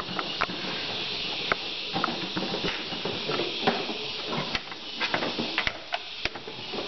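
Scattered light clicks and taps of a plastic-cased solar charge controller and a flat-tip screwdriver being handled against a plywood box, over a steady hiss.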